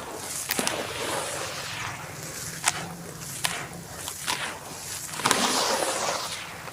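Charcoal being crushed and crumbled by hand: several sharp snaps and gritty crunching, with a longer crackling crunch about five seconds in.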